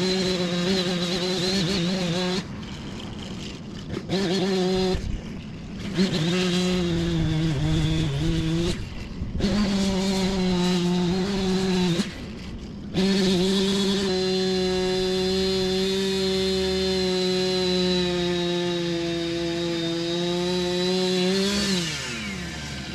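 Husqvarna two-stroke chainsaw revved hard in several short bursts, the throttle dropping between them, then held at full throttle for about eight seconds as it cuts into the tree. Near the end the throttle is released and the pitch falls away.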